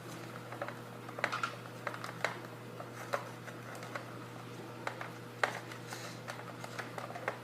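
Scattered small clicks and taps of a screwdriver working on the plastic shell and screws of a Nerf blaster as it is unscrewed, irregularly spaced, over a low steady hum.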